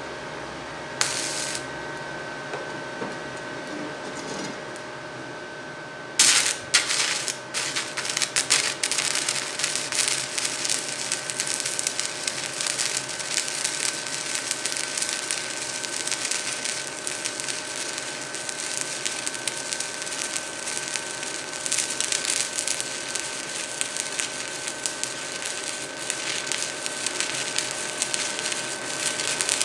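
Stick-welding arc from a Forney Easy Weld 100 ST turned down to about 50 amps with a 1/8-inch 7014 rod: a brief scratch about a second in and ragged stop-start bursts around six seconds as the too-cold arc struggles to strike, then steady crackling once it catches and runs. A steady faint whine sits underneath.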